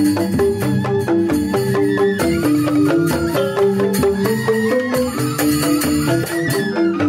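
Balinese joged bumbung gamelan playing: bamboo xylophones (grantang) strike a fast, busy run of repeating notes in interlocking patterns.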